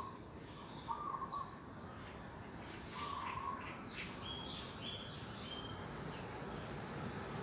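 Songbirds calling: a few short, low whistled notes about a second apart, then higher, thinner chirps in the second half.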